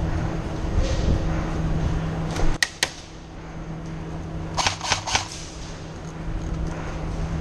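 Airsoft gun firing: two sharp shots close together about two and a half seconds in, then a quick string of about five shots around five seconds in.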